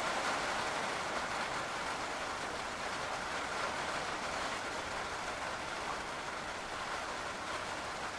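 Intense rain shower pouring down steadily as an even hiss, growing slowly a little quieter.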